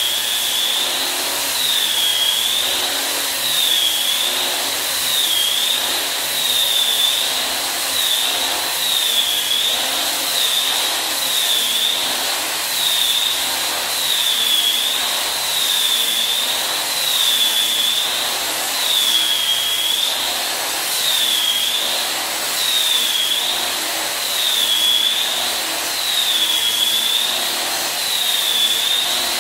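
Angle grinder with a sanding disc running at a high whine while sanding old wooden parquet flooring. The pitch dips and recovers about every two seconds as the disc is worked into the wood.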